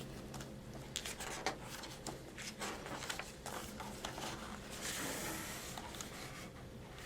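Faint clicks and taps with a soft paper-like rustle about five seconds in: a picture book's pages being handled and turned.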